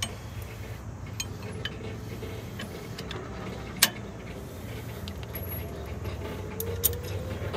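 Light metallic clinks and taps as a steel pin is worked through a tractor's lower lift arm and its bracket, a handful of separate clicks with the sharpest about four seconds in, over a steady low hum.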